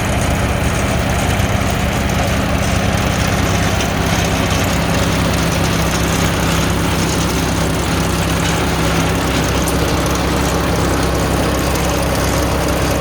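Compost shredder running steadily under power, a continuous engine drone with rough shredding noise over it.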